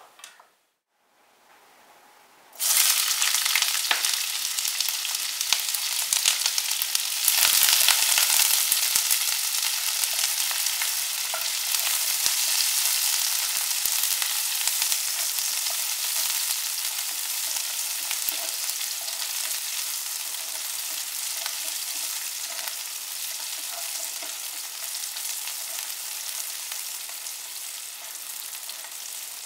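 Sliced onions sizzling in hot oil in a frying pan while being stirred with a spatula. The sizzle starts suddenly a few seconds in, as the onions hit the oil, and slowly fades.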